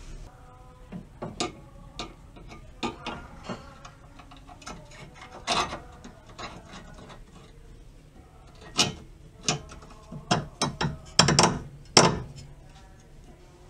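Ratchet wrench clicking in short irregular runs as it turns the nut on a stabilizer link, with sharper metal clinks and knocks of the tool, loudest in the last few seconds.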